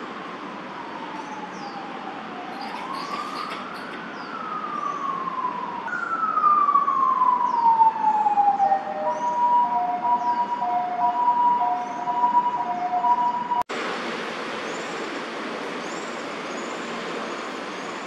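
Emergency vehicle siren going past: a wail that falls, rises and falls again, then switches to a two-tone hi-lo alternation, loudest in the middle. It cuts off suddenly near the end, leaving a steady city traffic hum with small birds chirping.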